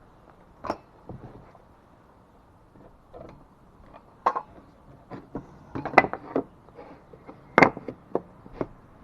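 Irregular knocks and taps of wooden boards being handled, scattered and sparse at first, then coming more often from about four seconds in, the loudest near six and seven and a half seconds. No saw is running.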